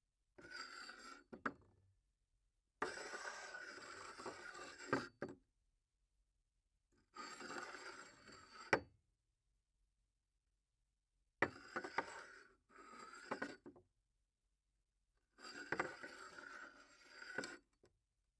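Glass cup slid across a tabletop five times, each slide a scraping rub of one to two seconds that often ends in a sharp small knock as the cup stops.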